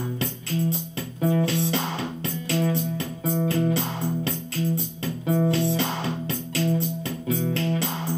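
Acoustic guitar played through an overdrive pedal into a small ten-watt amp, strumming chords in a steady rhythm.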